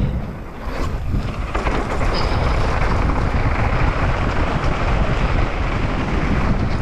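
Mountain bike descending fast on a downhill trail, heard from a bike-mounted camera: a steady rush of wind on the microphone and knobby tyres rolling over dirt with a low rumble. It comes off wooden bridge planks in the first second or so, then runs steadily on the dirt.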